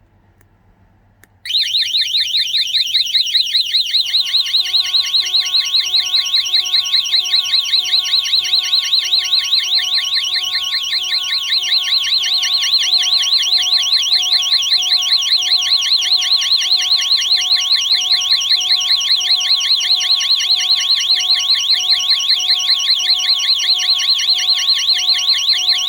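Godrej Eagle i Nxt wireless home alarm siren sounding, a loud, fast-warbling high wail that starts about a second and a half in. A few seconds later a lower, steady pulsing tone joins it. The alarm has been set off with the remote's emergency (SOS) button.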